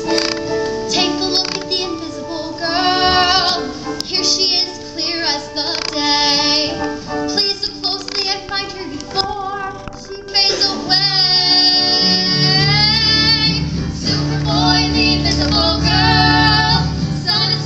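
Girls singing a musical-theatre duet with instrumental accompaniment, the held notes carrying vibrato. A deeper bass part comes in a little past halfway.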